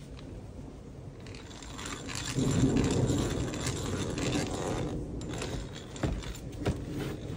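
Stanley hand drill being cranked, its gears turning. The sound swells about two seconds in and eases off, then two sharp clicks come near the end.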